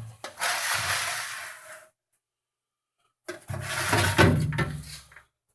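Plastic vegetable crisper drawers of a Liebherr fridge sliding in their runners, twice, each slide lasting about two seconds.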